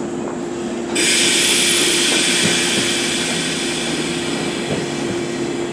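JR 189 series electric train standing at the platform with a steady hum; about a second in, a sudden loud hiss of compressed air starts and slowly dies away, the air brakes releasing just before the train pulls out.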